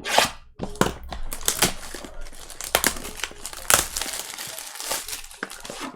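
Plastic wrapping on a sealed box of trading cards being torn open and crinkled: a steady run of irregular crackles and rustles.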